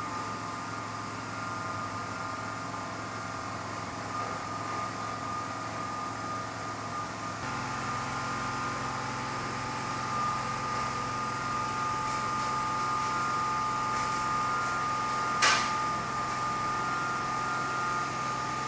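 A steady mechanical hum with a few held tones, changing slightly about seven seconds in, and a single sharp click near the end.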